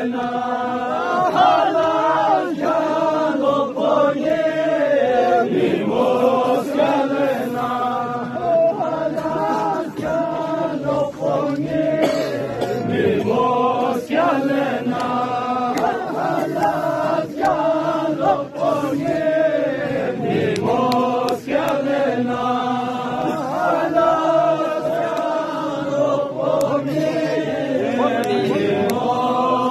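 Voices chanting a Balti noha, a Shia mourning lament, sung in phrases by a group in unison.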